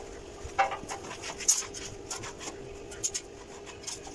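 Scattered light metallic clicks and knocks as a curved steel sheet is handled and positioned against a steel stair frame, the sharpest about one and a half seconds in, over a steady faint hum.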